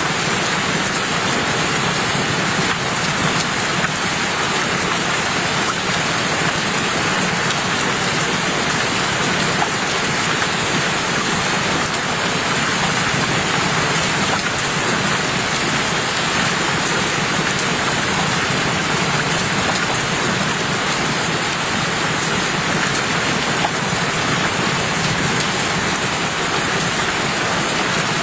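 Steady rain falling: a dense, even hiss that holds at the same level throughout.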